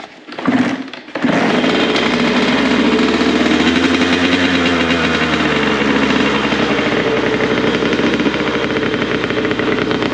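Honda CR85 85cc two-stroke dirt bike engine being kick-started on choke: a short loud sputter, then it catches about a second in and runs steadily, the revs rising and falling slightly in the middle.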